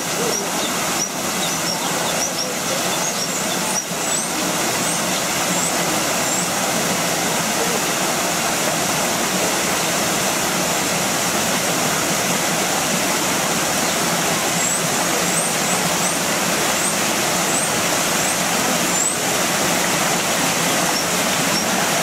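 Steady rushing of falling water, with short high chirps of small birds in two spells: through the first few seconds and again from about fourteen to nineteen seconds in.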